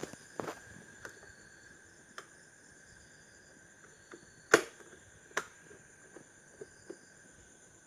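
Scattered sharp clicks and knocks of tools and fan parts being handled during reassembly of a table fan, the loudest about four and a half seconds in, over a faint steady high tone.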